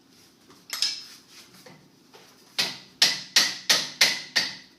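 Metal striking metal at the brake assembly: a couple of light knocks, then a run of six sharp, ringing strikes at about three a second in the second half.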